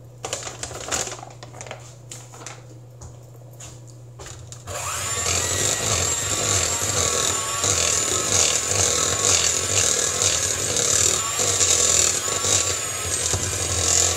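A few light taps and knocks, then about five seconds in an electric mixer switches on and runs steadily, its motor humming loudly as it mixes the flour into the cake batter.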